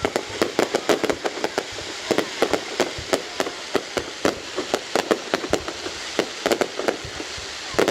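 Fireworks display going off: a rapid, irregular string of sharp bangs and pops, several a second, over a steady crackle.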